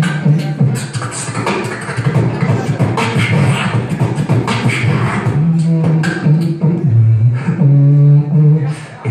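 Human beatbox through a microphone and PA loudspeakers: rapid percussive mouth drum sounds, joined from about five seconds in by a held, hummed bass tone that continues alongside the beat.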